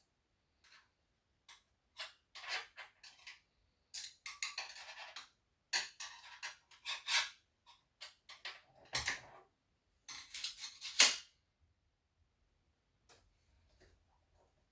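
Irregular handling noise: clicks, rustles and light knocks of things being picked up and set down, in bursts from about two seconds in, the loudest near eleven seconds, then stopping.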